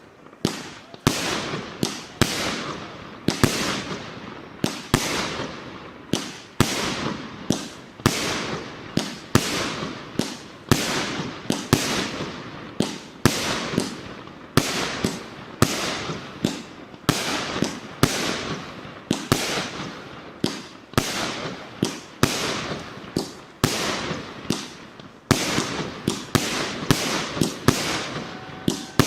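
FPM09 'Apocalypse' 100-shot, 1.2-inch fireworks cake firing in rapid succession: a steady string of sharp bangs, about one to two a second, each with a short echoing tail.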